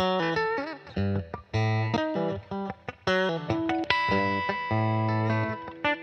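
Solo Fender Telecaster electric guitar playing blues, with low plucked bass notes alternating with higher melody notes. A note is bent with vibrato under a second in, and a single note rings out for most of a second about four seconds in.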